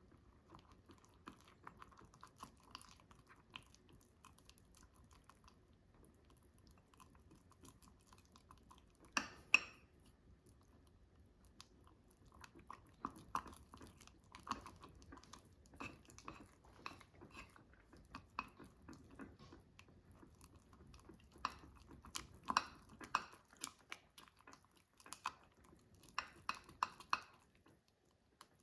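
A utensil stirring thick Nutella, egg and flour batter in a mug: faint, irregular squishy scraping and small clinks against the mug, with a few louder knocks about nine seconds in and again past twenty seconds.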